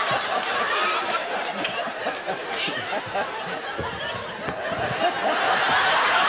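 Studio audience laughing, dipping in the middle and swelling again near the end.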